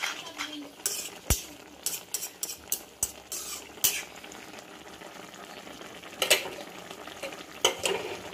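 Metal spoon stirring in a steel kadai of boiling greens and shrimp, with repeated sharp clinks and scrapes against the pan. Between the strokes, a soft steady bubbling and sizzle of the curry.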